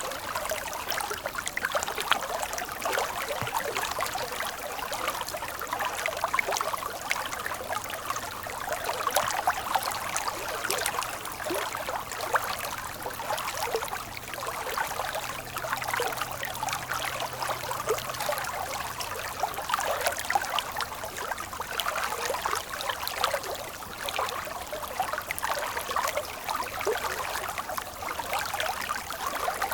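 Stream water flowing steadily, a continuous rushing with many small splashes and no deep rumble.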